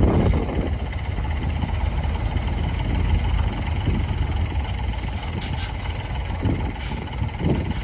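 Heavy diesel engine running steadily, a low rumble, with a few faint light clicks in the second half.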